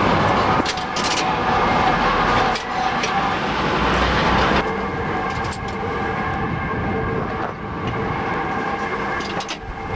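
Heavy industrial machinery running with a steady clatter, with several held metallic whining tones over it. The higher part of the noise eases about halfway through.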